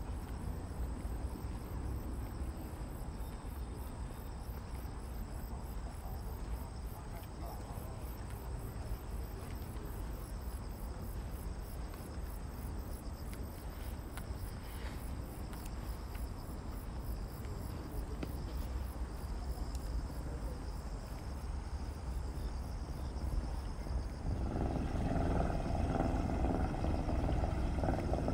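Insects chirping in a fast, even, high-pitched pulsing rhythm over a steady low outdoor rumble. An engine drone grows louder near the end.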